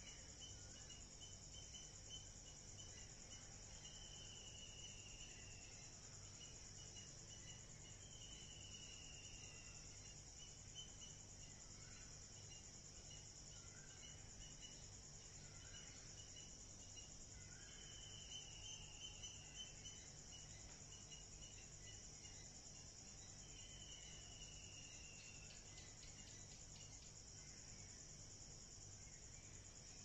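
Faint steady chorus of trilling insects, such as crickets, with a string of short chirps and, four times, a slow falling whistle-like note.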